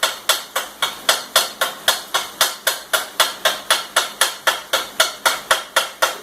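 Hammer striking metal in a steady, fast rhythm, about four sharp, ringing blows a second.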